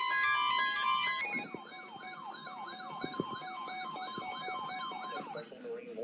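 Music for about the first second, then a weather alert radio's siren-style alarm: a rapid tone sweeping up and down about three times a second for some four seconds, stopping near the end.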